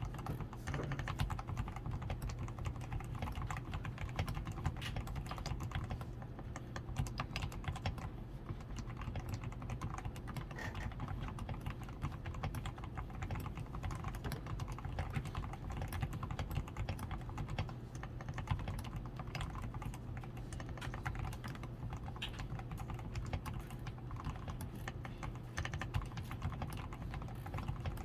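Steady, continuous typing on a DAREU A87 Pro mechanical keyboard whose switches are fully lubed with Krytox 105, with a PCB tape mod, lubed stabilizers and XDA keycaps: a dense run of uneven keystroke clicks. A steady low hum runs underneath.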